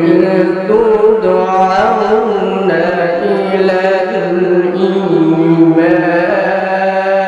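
A man's voice chanting Quranic recitation in Arabic in a drawn-out melodic style, with long held notes and wavering ornaments.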